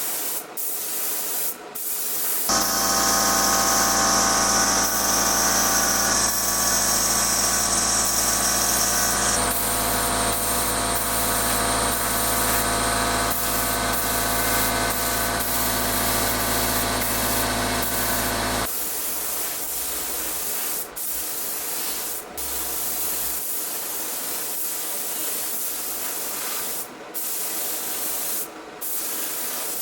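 Spray gun hissing steadily as it sprays Cerakote coating, with short breaks where the trigger is let off. From about two seconds in until about nineteen seconds, a steady motor hum with a whine runs underneath, then stops suddenly.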